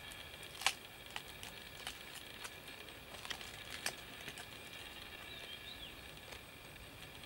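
A knife chopping into the husk of a young green coconut: about eight irregular sharp knocks, the loudest about half a second in, with a steady high hum in the background.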